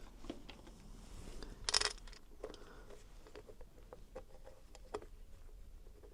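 Light clicks and taps of small engine parts and fasteners being handled, with one short scraping rustle a little under two seconds in.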